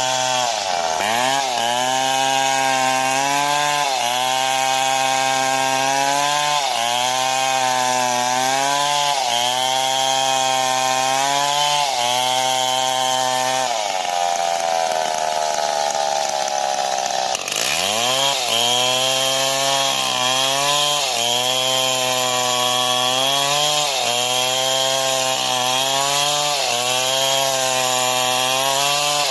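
STIHL MS 070 two-stroke chainsaw running at high revs in a cut, its engine pitch dipping and recovering about every second and a half. About halfway through, the pitch sags slowly for a few seconds, then drops sharply and climbs back.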